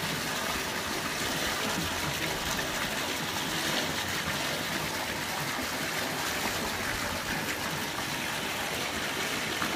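Steady running water in a concrete fish-farm pond, the flow that keeps a current moving through the pond.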